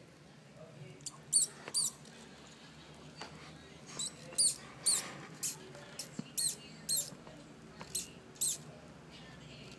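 Newborn pinky mouse squeaking: about a dozen short, very high squeaks, each dropping in pitch, coming in clusters. They are distress squeaks as a baby snow corn snake seizes it.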